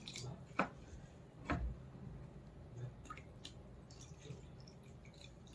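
Faint dripping and trickling of water poured slowly onto a disposable plate, with two short knocks in the first two seconds.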